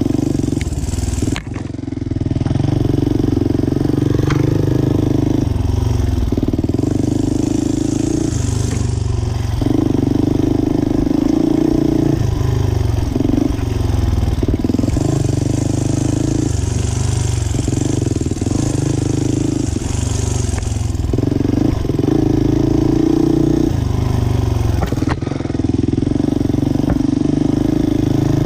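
Off-road motorcycle engine heard close up from on the bike, the throttle opening and closing every second or two as it rides a tight dirt trail. The engine drops off briefly about a second and a half in.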